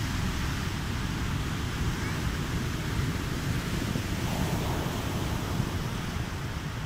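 Large Atlantic waves breaking and washing up a sandy beach, a steady surf rush mixed with heavy wind rumble on the microphone.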